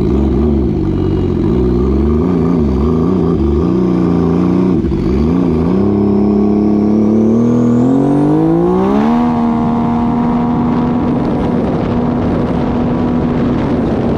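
Turbocharged jet ski engine running with the throttle going up and down, then climbing steadily in pitch as the ski accelerates hard toward its top speed of about 91 mph, and holding a steady high note from about nine seconds on. A thin high whine climbs alongside the engine during the run.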